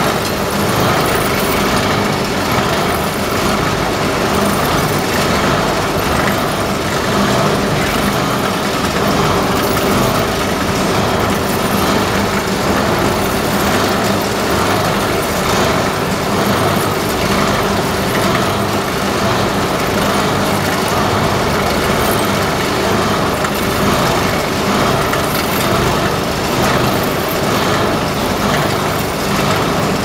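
Continuous biomass carbonization furnace machinery running: a steady, even mechanical hum with a constant hiss over it, no pauses or distinct knocks.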